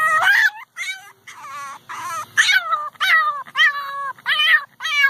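French Bulldog puppy whimpering and yipping: a quick string of about ten high-pitched cries, most dropping in pitch. It is a puppy's protest crying, which the owner takes for unhappiness at wearing her new tutu.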